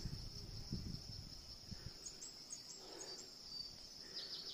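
Insects trilling steadily, a continuous high-pitched buzz, with a few faint chirps over it.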